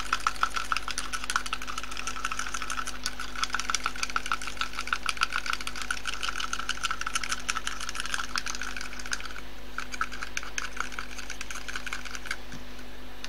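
Small metal hand whisk clicking rapidly against the sides of a plastic cup as it whisks a thick gel mixture. It pauses briefly past the middle and stops about a second before the end.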